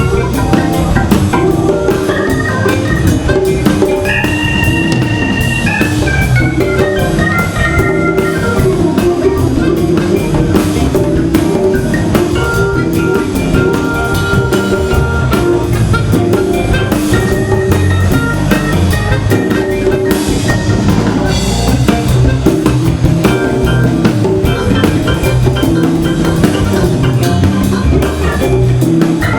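Live band music: a Hammond organ playing held and sliding chords and lines over a drum kit.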